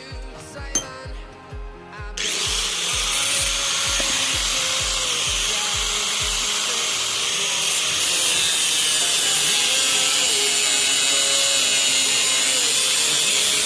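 A handheld power tool running steadily on metal. It starts abruptly about two seconds in, grows a little louder about eight seconds in, and stops at the end. Background music with a steady beat plays under the opening seconds.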